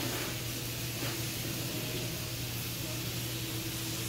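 Steady hiss with a low, even hum underneath: background noise of a store interior, with no distinct event.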